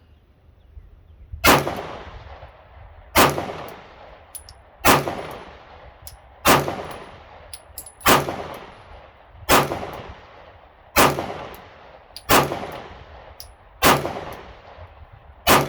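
A Glock 19 Gen 5 9mm pistol firing ten slow, evenly paced shots about a second and a half apart, each with a fading echo, with small high clicks between some shots. It is running brass-cased ammunition through a break-in with no malfunctions.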